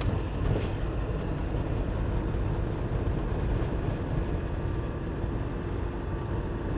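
Camper van driving along at steady speed, heard from inside the cab: a steady low rumble of engine and tyre-on-road noise.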